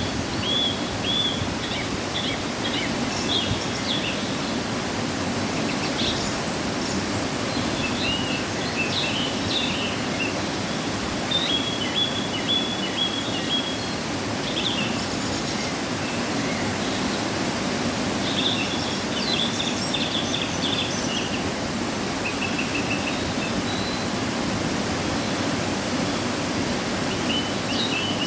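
Waterfall rushing steadily, running full after rain, with birds chirping in short bursts over it several times.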